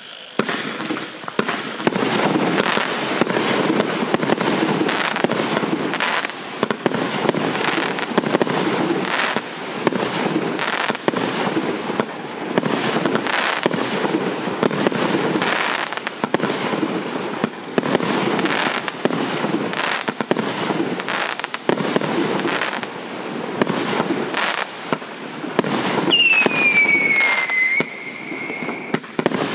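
A 100-shot, 1.2-inch consumer fireworks cake firing, its shots and bursts going off in quick, irregular succession, about one or two a second, with crackle between them. About 26 seconds in, a whistle falls in pitch for about two seconds.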